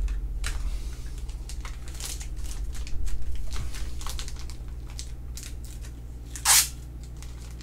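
Trading cards and their plastic and paper packaging being handled: rustling and crinkling with scattered light clicks, and one brief louder rustle about six and a half seconds in.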